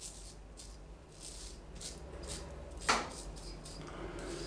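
Blackland Osprey adjustable double-edge safety razor on its mildest setting, 1, scraping through lathered stubble in short rasping strokes, two or three a second. One brief, louder sound comes about three seconds in.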